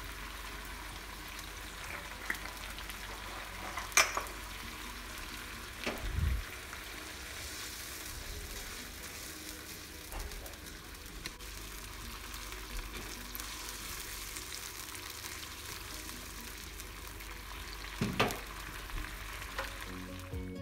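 Tomato-chili sambal frying in a wok with a steady sizzle as it is stirred with a spatula. A few sharp clicks and knocks come about four, six and eighteen seconds in.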